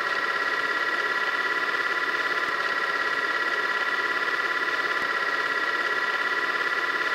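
A steady buzzing drone of several high tones with a fast flutter, unbroken and even in level.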